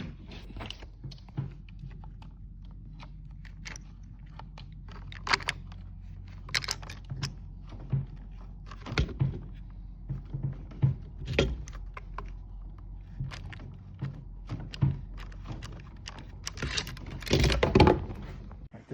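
Irregular clicks, taps and knocks of hand work on electrical wiring and fittings, over a steady low hum, with a louder rustling, scraping stretch near the end.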